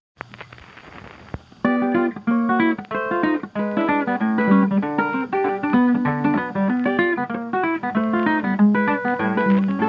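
Faint hiss, then about a second and a half in, lively ragtime music starts: quick, bright pitched notes over a steady bass line.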